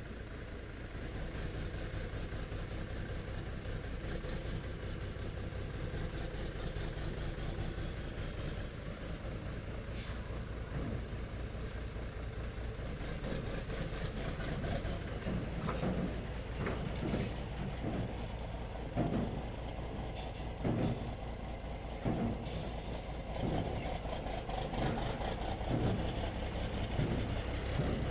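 Diesel engine of a Nissan Diesel (UD) truck idling with a steady low pulse. Occasional short hisses and irregular knocks sound over it, mostly in the second half.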